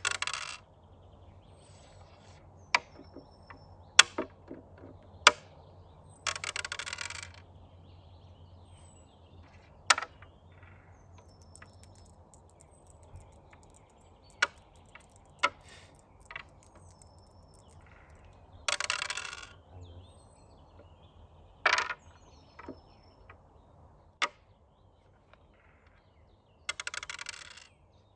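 Backgammon being played: dice rattling across the board in four short bursts, and checkers clicking sharply as they are set down.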